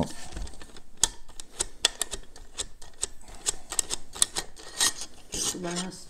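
Light, irregular clicking and tapping of small metal parts as a Pharos hand coffee grinder is taken apart by hand.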